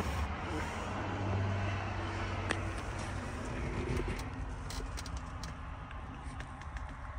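Low rumble of a motor vehicle, easing off about three seconds in, with a few light clicks around the middle.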